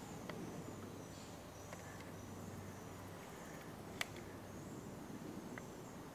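Quiet outdoor ambience with faint, scattered high-pitched chirping, and one sharp click about four seconds in.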